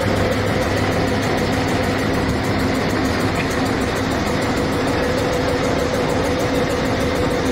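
Air compressor converted from a Selkon oil engine, with twin flywheels, belt-driven by an electric motor and running steadily: an even mechanical hum with a steady tone running through it.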